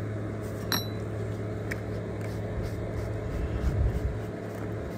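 Small metal parts of a disassembled hydraulic cab jack clinking as they are handled on a work table, with one sharp metallic clink that rings briefly about a second in and a fainter tap later, over a steady low hum.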